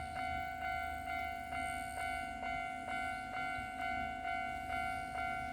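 Japanese level-crossing warning bell ringing, an even repeated ding about twice a second over a steady ringing tone, signalling that a train is approaching.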